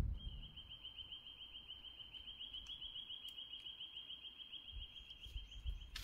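A bird's long, even trill: a rapid run of short, identical high notes at one steady pitch, held without a break for several seconds.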